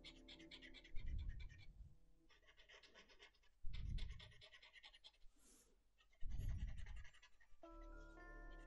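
Felt-tip marker scribbling on paper in quick back-and-forth hatching strokes, coming in four short spells, each starting with a soft low thump.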